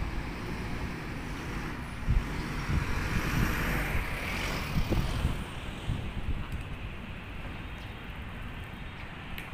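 Road traffic: a passing vehicle's noise swells to its loudest about four seconds in and fades, over a steady hum of traffic.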